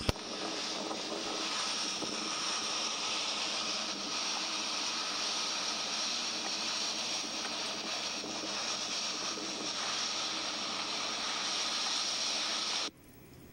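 Typhoon-force wind and driving rain, a steady rushing noise with wind buffeting the microphone. It cuts off abruptly near the end.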